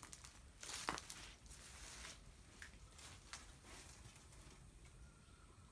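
Faint footsteps crunching on dry leaves and soil, a few scattered crackles in the first three seconds or so, then near silence.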